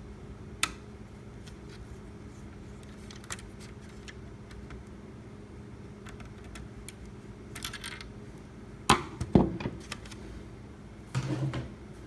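Scattered small metallic clicks and taps of tools or probes handled on a repair bench, the loudest pair about nine seconds in, over a steady low electrical hum.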